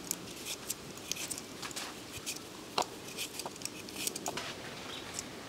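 Serrated vegetable peeler scraping the skin off a raw potato: a run of short, irregular crisp scrapes and ticks, with one sharper tick about three seconds in.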